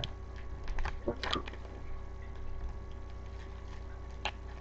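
Steady low electrical hum with a brief faint voice about a second in and a single sharp click about four seconds in.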